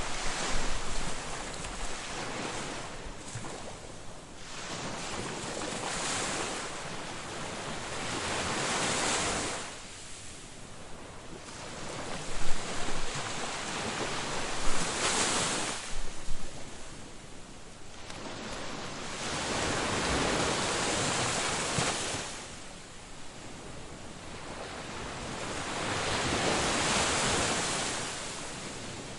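Ocean waves breaking on a beach: the surf swells, washes in and drains back in slow cycles, a wave every five to seven seconds, with a few sharper splashes near the middle.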